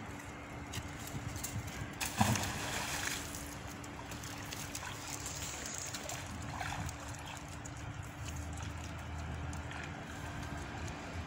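A heavy fishing magnet on its rope splashes into the river about two seconds in, followed by quieter sloshing in the water.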